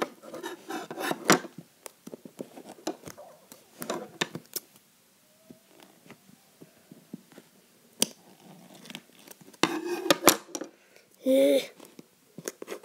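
Scissors and fingers working at the taped seam of a cardboard shipping box, with scattered clicks, snips and scraping of cardboard and tape. There is a denser scraping or tearing stretch about ten seconds in and a brief pitched squeal just after it.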